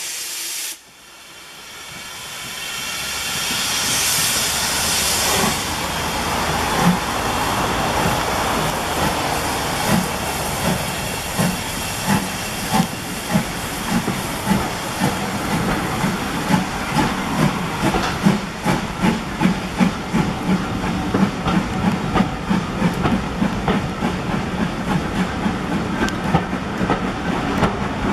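Steam locomotive pulling a train out of a station: a loud hiss of escaping steam builds first, then the train rolls past with a rhythmic beat that quickens as it gathers speed.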